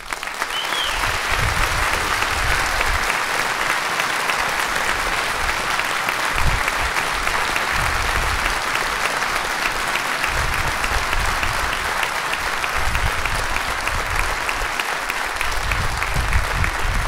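Audience applauding in a large hall at the end of an orchestra piece, a dense, steady clapping that starts as the music stops and keeps on, with a short high whistle about a second in.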